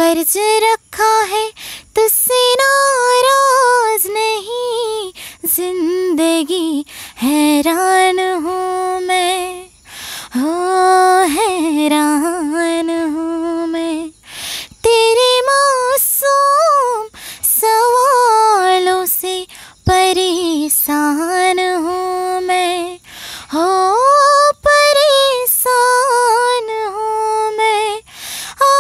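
A woman singing a slow Hindi film song unaccompanied, in long held notes that slide between pitches, with short breaks for breath.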